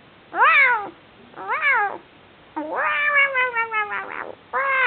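Toy Pinscher giving high-pitched yips and whines while play-biting a hand. Two short calls rise and fall in pitch, then a longer wavering whine slides down, and more yips start near the end.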